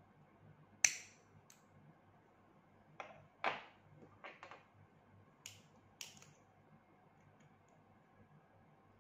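Small metal dental pliers and wire being handled and set down on a wooden table: about eight short, sharp clicks and taps, the loudest about a second in, a cluster a few seconds later, then two more, over a faint steady hum.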